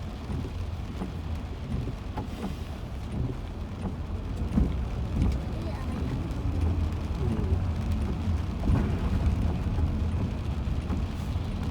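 Road noise inside a moving car: a steady low rumble of tyres and engine, with a few faint clicks and knocks.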